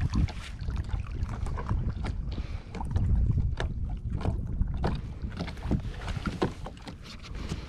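Wind rumbling on the microphone, with scattered short knocks and rustles as a redfish is handled and lifted out of a landing net on a kayak deck.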